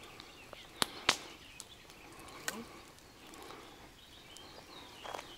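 Quiet lakeside background with faint bird calls, broken by a few sharp clicks about a second in and again around two and a half seconds in: handling noise from the float rod while a hooked tench is played.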